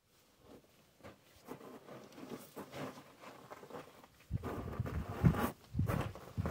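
Clothing and gear rustling as a person gets up from sitting, then footsteps scuffing on gravelly rock, louder and heavier from about four seconds in.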